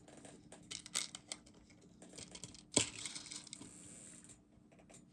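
Small handling noises while working on a personal cassette player: light clicks and rustling, with one sharper tap about three seconds in followed by a second or so of rustling.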